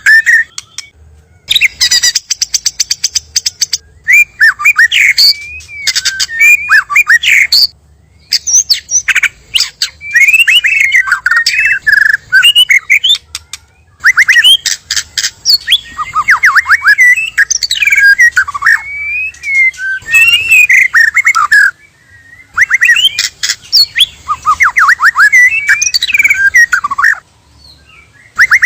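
White-rumped shamas (murai batu) singing: loud, varied whistled phrases with quick up-and-down glides, in bursts of a few seconds with short pauses between, mixed with rapid clicking chatter.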